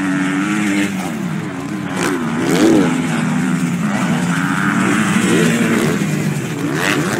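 Several motocross motorcycle engines revving and changing pitch as riders accelerate past on a dirt track, their notes overlapping, with sharp rising-and-falling revs a couple of times.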